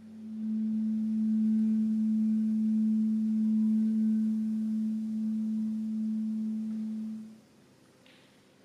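Cello holding one long bowed note, a steady, almost pure-sounding tone that lasts about seven seconds and then stops.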